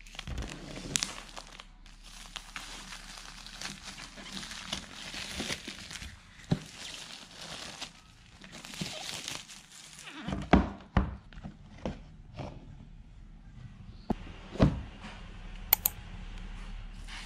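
Clear plastic shrink-wrap crinkling and rustling as it is peeled off a cardboard iPad box. This is followed by several sharp knocks and thunks as the box is handled and its lid lifted off.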